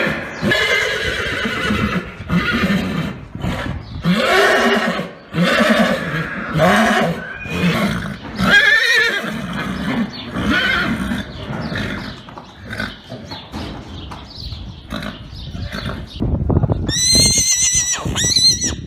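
Horses neighing and whinnying, one wavering call after another, with a higher, shrill whinny near the end.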